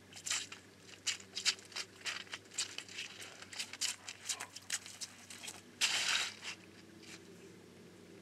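Scattered clicks, crackles and rustles on the ice as a hook is worked out of a landlocked salmon with forceps, with a German Shepherd's paws moving on the crusty ice; a louder scraping rustle about six seconds in.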